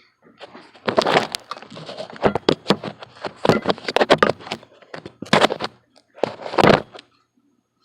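Irregular knocks and clatter of metal parts being handled on an old bench grinder while its grinding stones are changed. The grinder is not running.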